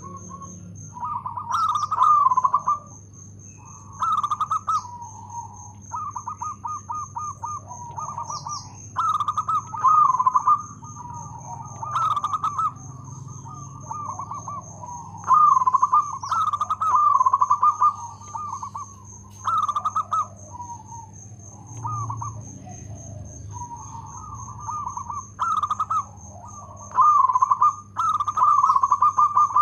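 Zebra dove (perkutut) cooing: repeated phrases of quick staccato coos, one about every one to two seconds.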